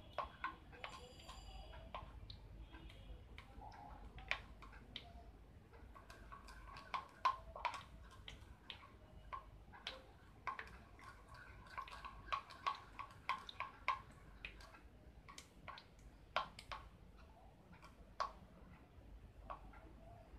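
Faint, irregular light clicks and taps of a utensil against a plastic strainer and bowl, one or two a second and busiest midway, as a mixture is pushed through to strain it.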